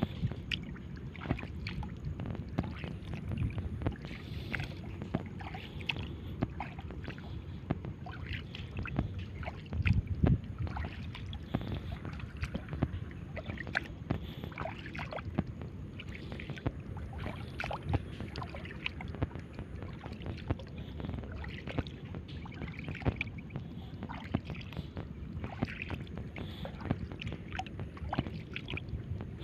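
Shallow seawater sloshing and splashing, with many small irregular splashes and clicks and a louder splash about ten seconds in.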